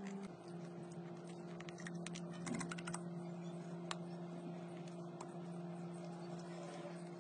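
Small dry clicks and taps of wooden toothpicks being handled and pushed into screw holes in a wooden door frame: a quick run of ticks a couple of seconds in, then a few single ticks. A steady low hum runs underneath.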